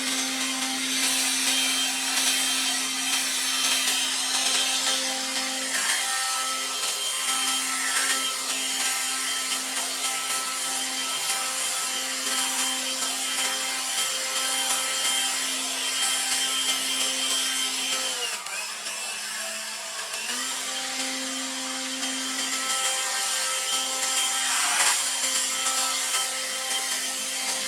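Battery-powered leaf blower running steadily, a motor whine over a rush of air, its pitch dropping briefly about eighteen seconds in before coming back up.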